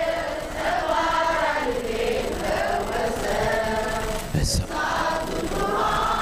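Congregation singing an Amharic Ethiopian Orthodox hymn together in many voices. A brief thump comes about four seconds in.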